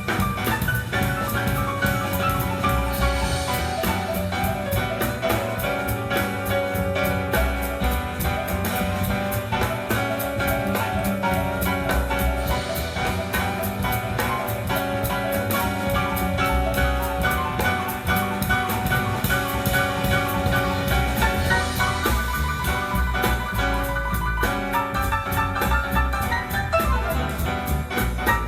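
Instrumental music with a steady beat, played back through a Yamaha PC2002M power amplifier.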